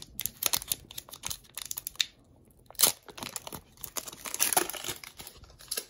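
Pokémon booster pack's foil wrapper crinkling and tearing open, a run of sharp crackles with a short pause about two seconds in.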